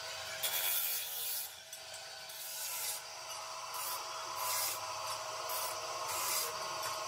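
Steel tube pressed against the spinning disc of an electric abrasive chop saw, grinding in about six short, harsh bursts at irregular gaps over the saw motor's steady hum.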